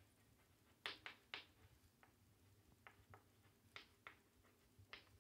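Faint taps and short scrapes of chalk on a chalkboard as a line of words is written: about eight quick ticks in uneven little groups.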